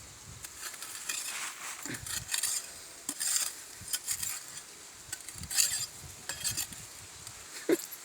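A digging tool cutting and scraping into dry soil in irregular strokes, each a short gritty scrape.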